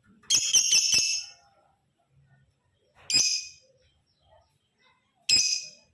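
Male lovebird calling in loud, shrill, harsh bursts: a longer stuttering burst near the start, then two short shrieks about two seconds apart.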